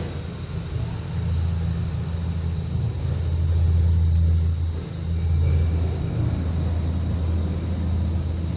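Steady low rumble of a cable-car gondola cabin and the station machinery as the cabin runs slowly through a station. It swells slightly near the middle and dips for a moment just after.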